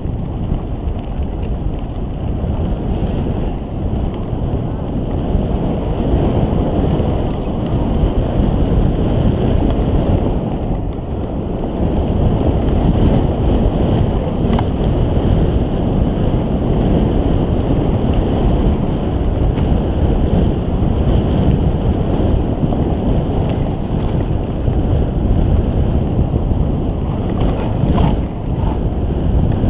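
Mountain bike descending a dirt singletrack at speed: wind buffeting the bike-mounted camera's microphone over the rumble of tyres on the trail, with scattered clicks and knocks from the bike.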